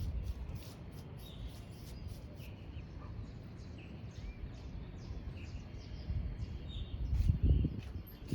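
Wind buffeting the microphone in gusts, strongest near the end, with small birds giving short repeated chirps.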